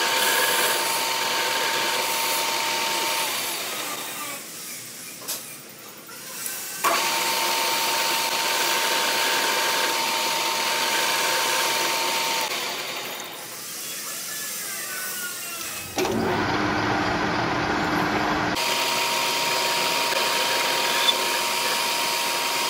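Metal lathe running with a starter motor armature shaft turning in its chuck, a steady whine over the machine noise. The sound fades away twice for a few seconds, and a short stretch of different noise breaks in near the end.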